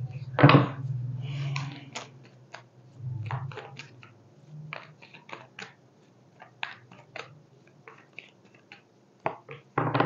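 A deck of tarot cards being shuffled by hand: a run of irregular light card snaps and flicks, with a low hum in the first few seconds.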